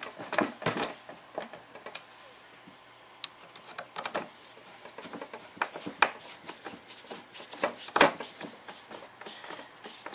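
Hand screwdriver driving screws into the plastic frame of a Stihl backpack blower: irregular clicks, scrapes and rubbing of the tool and plastic parts, with two sharper knocks about six and eight seconds in.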